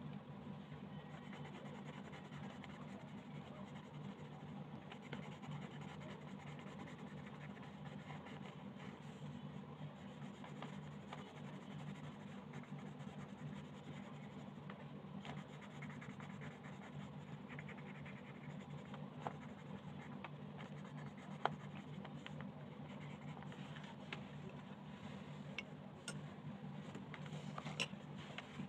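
Colored pencil scratching steadily across paper as a coloring page is shaded, with a few light clicks in the second half.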